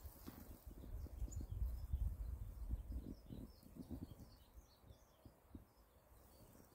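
Small birds chirping in short, high notes, more often in the second half, over a gusty rumble of wind on the microphone that eases toward the end.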